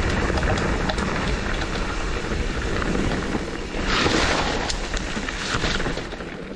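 Wind buffeting the camera microphone while a mountain bike rolls fast down a dirt trail, with tyre noise and many small rattles and clicks from the bike. There is a louder rush about four seconds in, and the sound eases off near the end.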